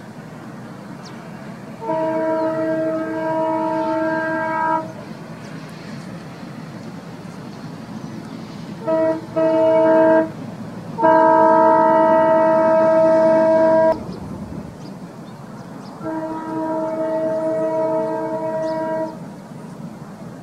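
Train horn sounding five steady blasts: a long one, two short ones, then two more long ones. A steady low rumble of the running train continues throughout.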